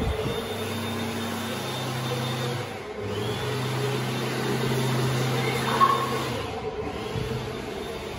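Steady low hum of building ventilation in a large tiled restroom, with one short click a little past the middle.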